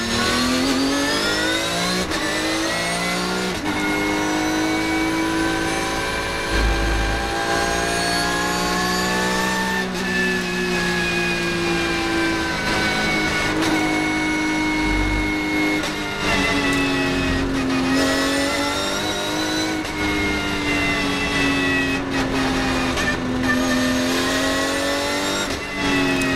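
2016 Porsche 991.1 GT3 Cup car's flat-six racing engine at full throttle, heard from inside the cockpit. It shifts up twice in the first four seconds, then its pitch rises and falls slowly as the car accelerates, lifts and brakes through corners.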